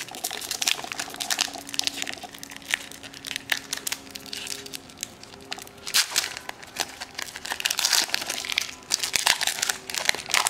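Foil booster-pack wrapper of a Magic: The Gathering Kaladesh pack being torn open and crumpled by gloved hands: a continuous run of sharp crinkles and crackles.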